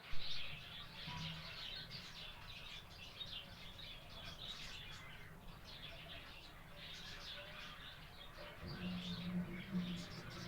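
Many parrots chirping and chattering at once, a dense continuous mass of short overlapping calls.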